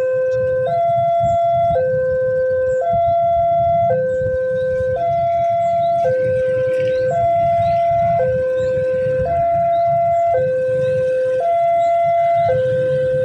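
Railway level-crossing warning alarm sounding an electronic two-tone signal that alternates between a lower and a higher note about once a second, the warning that a train is approaching. A steady low rumble runs underneath.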